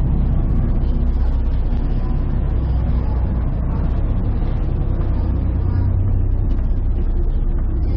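Steady, loud low engine drone that stays even and unchanging, with faint voices underneath.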